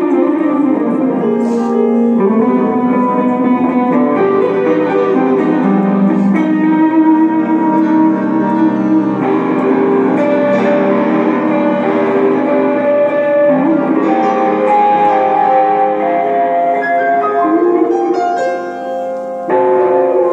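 Live trio music of a small wooden wind instrument, grand piano and hollow-body electric guitar playing together, the wind's long held notes over piano and guitar. Near the end the sound thins briefly, then the group comes back in suddenly louder.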